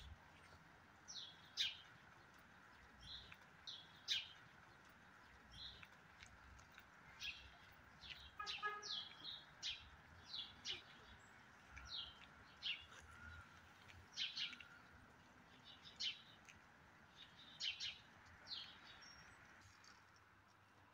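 Small birds chirping, faint: short high chirps repeating every half second to a second.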